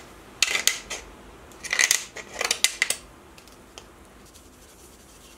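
Hard PVC pipe pieces being handled and fitted together: two short clusters of plastic clicks and scrapes in the first three seconds, then only faint ticks.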